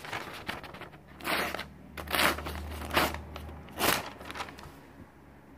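A pocket-knife blade cutting through a glossy paper advertising flyer: about five crackling rasps of paper, roughly one a second. The owner says afterwards that the blade needs sharpening.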